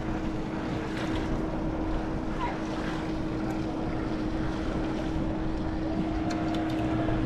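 A small fishing boat's motor running steadily, a constant hum over a low rumble of wind and water.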